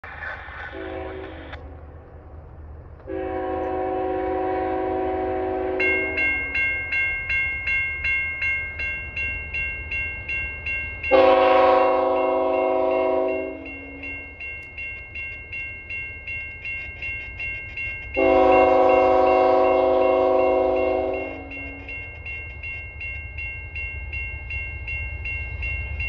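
CN freight locomotive's multi-note air horn sounding three long blasts for a level crossing, several seconds apart, with the tail end of another blast at the start. From about six seconds in, the crossing bell rings steadily at about two strokes a second.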